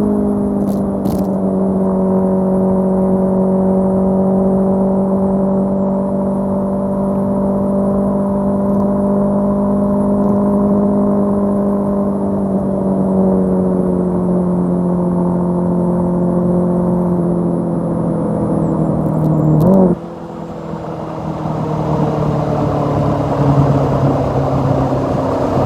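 Honda CB500F's parallel-twin engine running through an aftermarket HP sport exhaust, holding a steady note that slowly sinks in pitch. About 20 seconds in, the note briefly rises, then drops suddenly in loudness and pitch before building up again.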